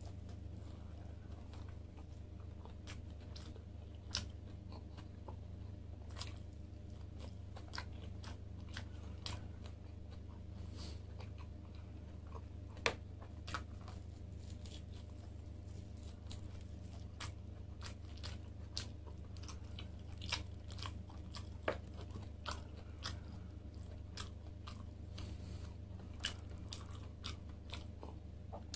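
Close-up chewing and biting as grilled lamb chops are eaten off the bone by hand, with many short mouth clicks and smacks at irregular intervals. A steady low hum runs underneath.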